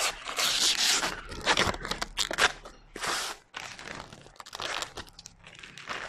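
Crinkling and crackling of a cladding panel and its protective film being handled and worked by hand, in irregular bursts that are loudest in the first two and a half seconds and quieter after.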